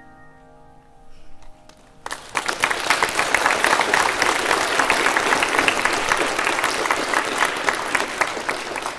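The last held notes of the music fade out, then about two seconds in an audience breaks into loud, steady applause that carries on until near the end.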